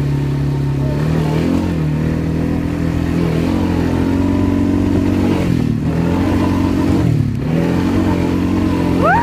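Kymco MXU 300 ATV's single-cylinder engine running at steady revs while riding, dipping and picking up again twice in the second half.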